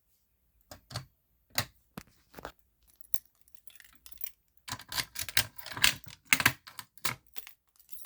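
A run of irregular clicks and knocks from a fire alarm pull station being handled, a few scattered at first and a dense clatter from about five seconds in.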